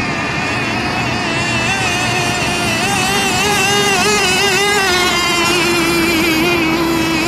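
Several radio-controlled racing boats running flat out together, their engines whining at a high pitch that wavers up and down as they throttle and turn. About halfway through, one engine's steady whine becomes the loudest and dips slightly in pitch.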